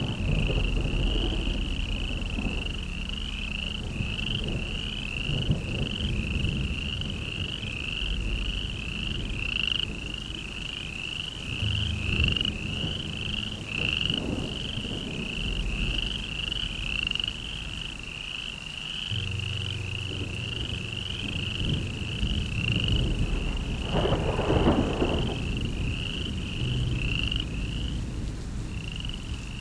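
Chorus of frogs calling in a steady run of short, high chirps, nearly two a second, over a low, shifting rumble.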